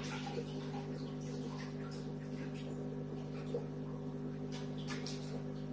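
Aquarium filter pump humming steadily, with faint short clicks and chirps scattered over it.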